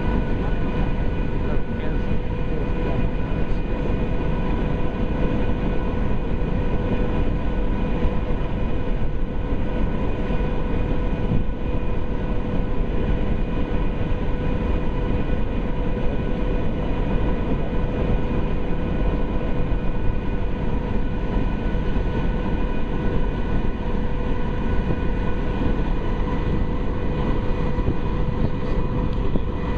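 Steady drone of a high-speed ferry under way, heard from its deck: a constant hum with several steady tones over a rushing noise.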